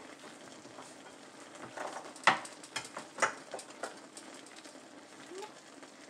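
Tilapia with tomatoes and onions simmering in broth in a frying pan: a steady bubbling hiss with scattered sharp pops, bunched between about two and four seconds in.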